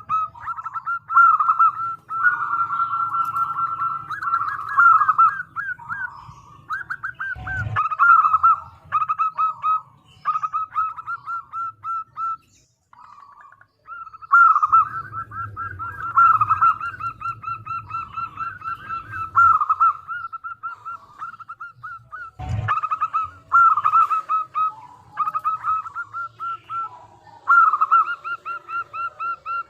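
Zebra dove (perkutut) singing: repeated phrases of rapid, quavering cooing notes, with a short pause about halfway. Two sharp knocks cut in, about a third of the way in and again about three-quarters through.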